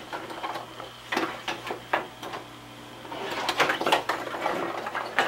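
Irregular clicks and light rattling from a handmade kaleidoscope being handled and turned, thickest about three to four seconds in.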